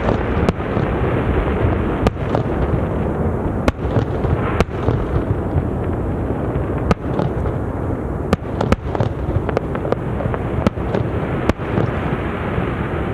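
Fireworks display: shells bursting in quick succession, sharp bangs about once a second over a continuous dense din.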